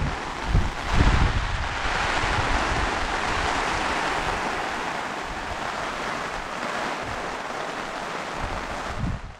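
Steady outdoor wind noise, with gusts buffeting the microphone about half a second to a second in and again near the end, before it fades out.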